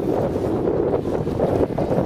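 Wind buffeting the microphone in a steady low rumble, over small waves washing onto the sand at the water's edge.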